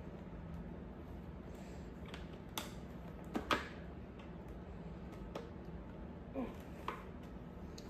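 Scattered small plastic clicks and scrapes as a Riddell quick-release tool works a face mask clip onto a Riddell Speedflex football helmet, the loudest pair of clicks about three and a half seconds in.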